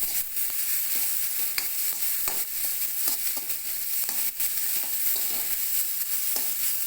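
Potatoes and vegetables sizzling in hot oil in a kadhai (Indian wok), stirred with a steady hiss and scattered short scrapes and taps of the spatula against the pan.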